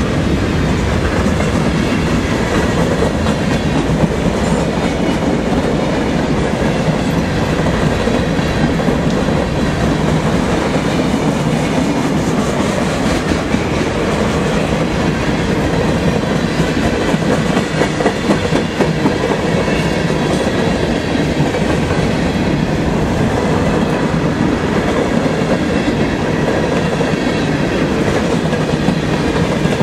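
Freight train cars rolling past at speed close by: a loud, steady rumble and rattle of steel wheels on the rails.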